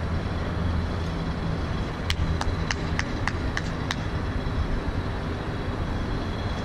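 Steady city traffic rumble. About two seconds in comes a quick run of about seven sharp clicks, roughly three a second, lasting a couple of seconds.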